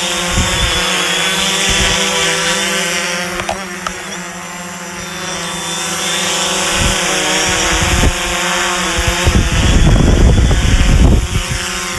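FIMI X8 SE quadcopter's propellers whining steadily in flight, a layered motor hum that eases a little midway. A heavy low rumble joins in about nine seconds in.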